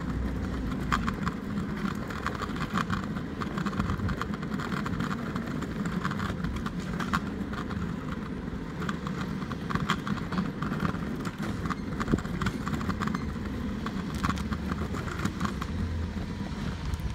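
Garbage truck engine running steadily a short way up the street, with quick irregular taps and clicks close by throughout.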